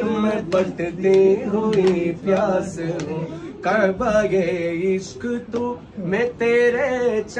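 A man singing without instruments, holding long, wavering, ornamented notes.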